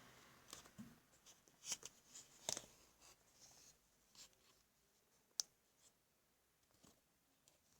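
Near silence with a few faint, scattered clicks and light taps from hands handling the washing machine's motor mounting after its screw is taken out; the sharpest click comes about five and a half seconds in.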